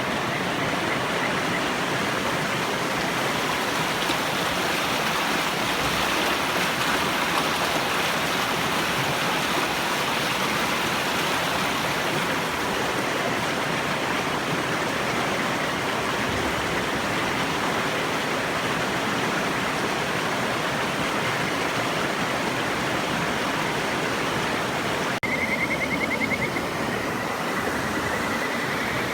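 A river rushing steadily, with a Kajika frog's high, fast trilling call starting near the end and faintly about a second in.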